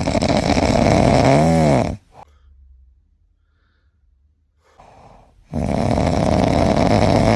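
Loud snoring: two long snores of about two seconds each, a few seconds apart, with a faint breath between. Near the end of the first snore a brief whistle rises and falls in pitch.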